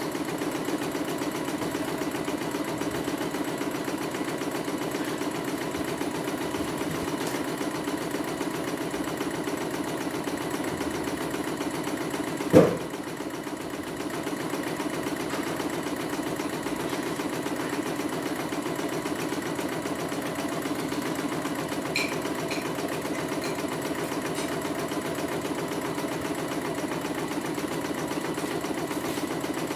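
CNY computerized embroidery machine stitching out a test design, its needle running in a steady, fast rhythm as the hoop carries the fabric. A single sharp knock sounds a little under halfway through.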